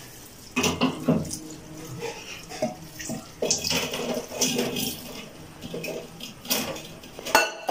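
Milk poured from a steel jug into a stainless steel mixer-grinder jar over cut apple pieces: a splashing liquid stream, with several sharp metal clicks and knocks along the way.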